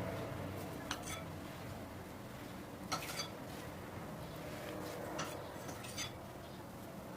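Occasional light taps and clinks of kitchen utensils against dishes, about six in all, over a faint steady hum.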